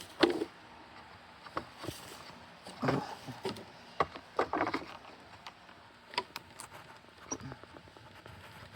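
Scattered clicks and short scraping sounds of a wire being pulled back through a homemade wire-stripping jig.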